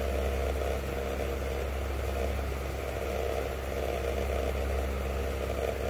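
A steady low mechanical hum, running evenly with no change.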